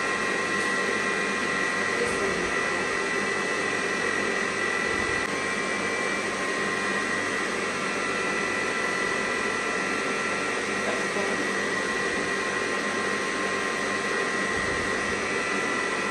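Electric stand mixer running steadily, creaming butter and sugar, with an even motor whine.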